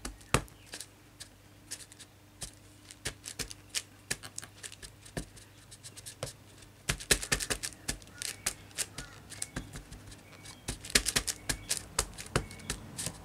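StazOn ink pad dabbed again and again onto a stamp to ink it: a string of small sharp taps, scattered at first and coming in quick flurries about halfway through and again near the end.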